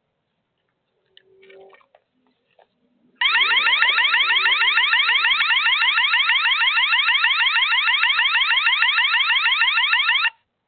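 Electronic alarm siren, a rapid rising warble repeated many times a second. It starts suddenly about three seconds in, sounds loud and steady for about seven seconds, then cuts off abruptly. It is the loud noise used to chase a raccoon off the cats' food.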